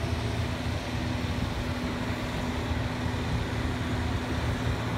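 Large farm tractor's engine running steadily as it tows a carry-scraper, heard from a distance as a steady rumble with a low hum.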